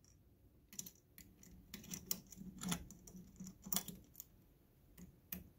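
Faint, irregular clicks and scrapes of a hand driver turning an M3 bolt into an aluminium MK8 extruder bracket to fasten the stepper motor.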